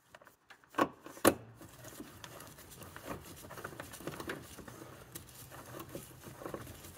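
Ratchet wrench with a 10 mm socket working an airbox bolt. There are two sharp knocks about a second in, then a long run of faint, quick ratcheting clicks as the bolt is run in.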